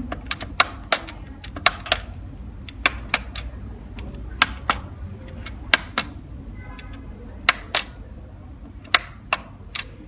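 Buttons on a handheld remote control clicking, pressed one after another, mostly in quick pairs about a quarter second apart, over a low steady hum.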